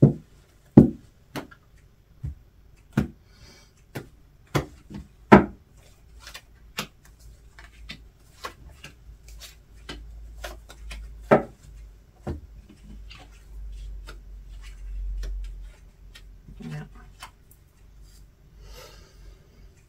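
Tarot cards handled and dealt onto a wooden-sounding tabletop: a quick run of sharp card taps and snaps in the first few seconds, then softer sliding and rubbing as five cards are laid out in a row, with one more sharp tap about halfway.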